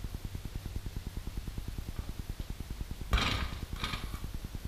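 A flat basketball hitting the rim and backboard of a driveway hoop about three seconds in, a sharp knock followed by a weaker second knock as the shot drops in. A steady low, fast fluttering runs underneath throughout.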